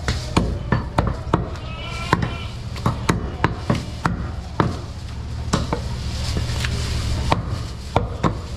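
A large butcher's knife chopping goat meat on a wooden chopping block: a string of sharp, irregular chops, roughly two or three a second, with a short pause about halfway.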